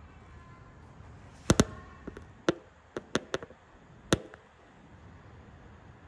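A run of about seven sharp knocks or clicks, irregularly spaced over under three seconds. The loudest is a quick pair about a second and a half in, and the last comes just after four seconds.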